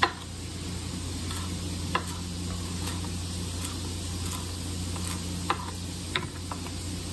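Chopped onion, fennel and herbs sizzling steadily in a frying pan, with a few sharp clicks of a spatula stirring against the pan.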